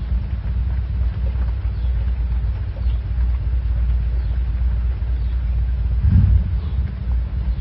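Air from an electric fan rumbling low and steady on the microphone, with a single dull thump about six seconds in.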